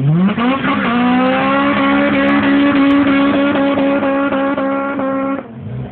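Honda Civic Type R's four-cylinder engine revving up quickly in the first second, then held at high revs for about four seconds under load, before dropping away suddenly near the end.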